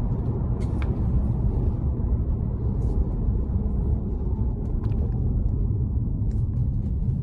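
Steady low road and tyre rumble inside the cabin of a moving Tesla Model Y, an electric car, so there is no engine note. A few faint light ticks sound now and then.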